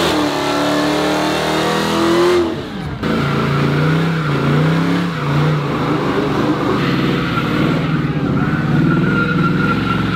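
Burnouts: a Dodge Charger's engine held at high revs with its tyres spinning, then, after a break at about two and a half seconds, a New Edge Ford Mustang convertible's engine revving up and down as its rear tyres spin in smoke.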